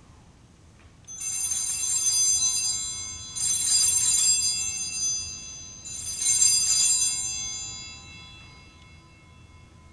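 Altar bells (Sanctus bells) rung three times about two and a half seconds apart, each a shaken jingle of several small bells that rings on and fades; they mark the elevation of the chalice at the consecration.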